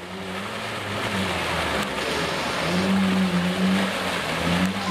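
Jeep Wrangler's engine running under load as it pushes through deep mud, with mud and water sloshing and spraying off the tyres; the engine note grows stronger about halfway through.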